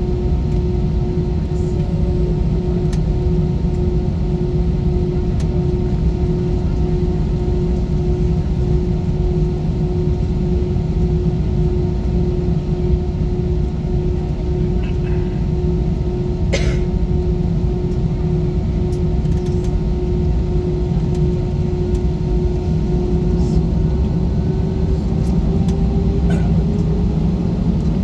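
Airbus A320 jet engines heard from inside the cabin while taxiing: a steady hum over a low rumble. There is one sharp click about two-thirds through, and the engine tone starts to rise near the end.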